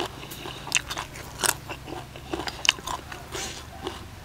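Close-up crunchy chewing of a mouthful of crispy-skinned duck larb and raw vegetables, with irregular crunches and wet mouth clicks.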